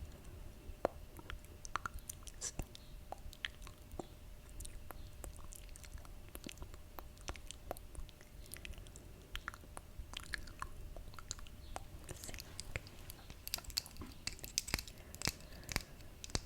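Close-miked ASMR mouth sounds: a run of irregular wet clicks and smacks from the lips and tongue. They come thicker and louder in the last few seconds.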